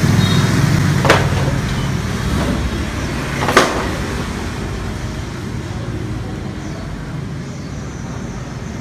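Road traffic going by, with one vehicle's engine hum fading out about a second and a half in, then a steady rumble. Two sharp clicks stand out, about one second in and about three and a half seconds in.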